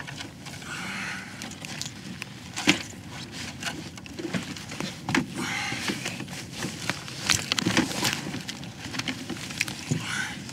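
Scattered knocks, taps and rustling as a freshly netted lake trout is brought out of the landing net aboard a kayak, with one sharper knock about two and a half seconds in.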